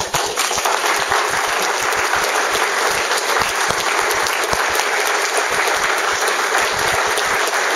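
A roomful of people applauding steadily, many hands clapping at once.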